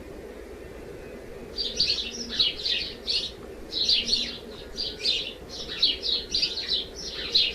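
A small bird chirping rapidly in repeated phrases, starting about a second and a half in, over a steady low hum.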